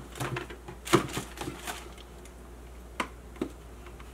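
A cardboard box and papers being handled: light rustling and a few sharp knocks and taps, the loudest about a second in and two shorter ones close together around three seconds.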